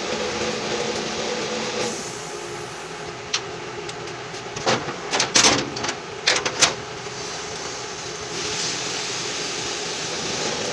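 A steady mechanical hum, with a cluster of sharp knocks and clicks in the middle, roughly three to seven seconds in.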